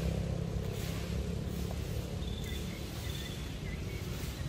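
A steady low engine rumble, with a few faint, high bird chirps in the middle.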